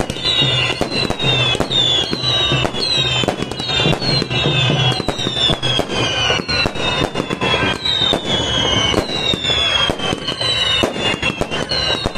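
Fireworks going off in quick succession: a steady string of sharp bangs and crackles, with high whistles that keep sliding down in pitch, one after another.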